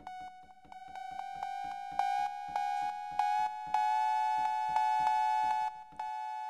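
Elektron Analog Rytm's analog cowbell voice, set to a long decay. It is struck over and over, about three or four times a second, each hit ringing into the next as one metallic pitched tone. The pitch creeps slightly upward as the detune is turned. The hits stop about six seconds in and the last note rings on, fading.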